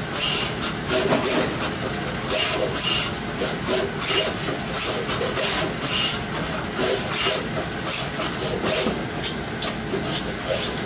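Fuji SMT surface-mount assembly line machinery running: a steady mechanical hum with quick, irregular hissing bursts, several a second.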